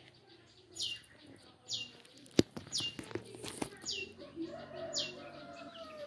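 Caged long-tailed shrike (cendet) calling: a high note sweeping down, repeated about once a second. A sharp click about two and a half seconds in, then a few more clicks a little later.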